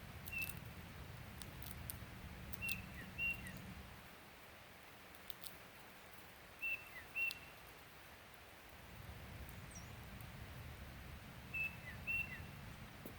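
Short, high bird chirps, mostly in pairs, repeated four times, over a faint low rumble.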